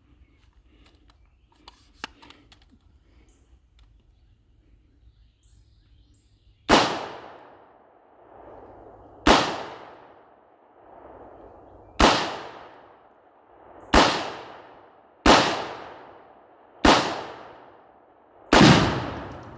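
Seven shots from a full-length AR-style rifle, fired one at a time at uneven intervals, each followed by a long decaying echo. The seventh is a broader, heavier blast: the round hitting and setting off the tannerite target.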